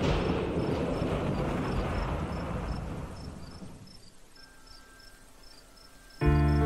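Steady rain falling, fading away over the first few seconds, with a cricket chirping about twice a second throughout. Music comes in suddenly near the end.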